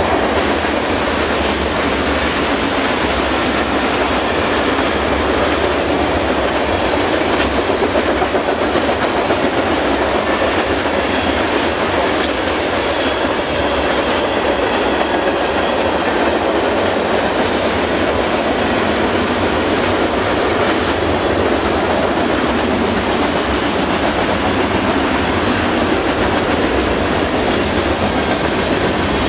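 Freight train's covered hopper cars and boxcars rolling past close by, a loud, steady noise of steel wheels running on the rails with no let-up.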